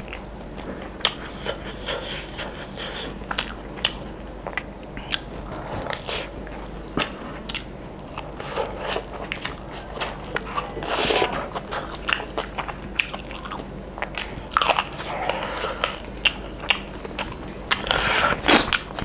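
Close-up mouth noises of a man chewing and biting handfuls of mutton curry and rice eaten by hand, with many irregular wet clicks and smacks.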